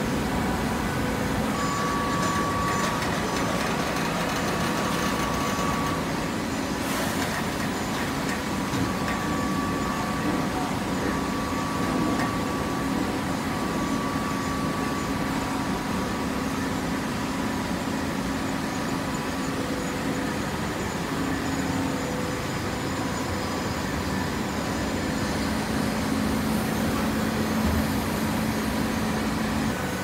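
Auto-tie horizontal hydraulic baler running: the steady hum of its motor and hydraulic pump, with a faint whining tone that comes and goes.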